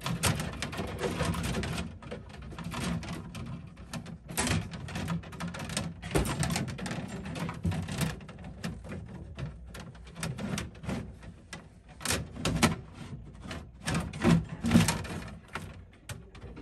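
Old wiring being dragged out through a boat's wiring chaseway: irregular rustling and scraping with many sharp clicks and knocks as the wires rub and catch, the sharpest knocks coming near the end.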